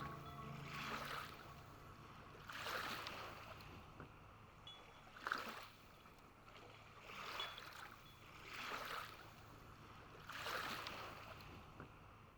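Faint water washing in soft swells, six in all, coming every two seconds or so.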